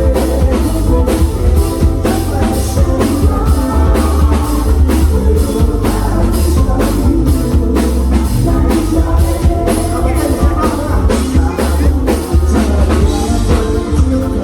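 Live rock band playing: a drum kit keeps a steady beat over bass and electric guitar.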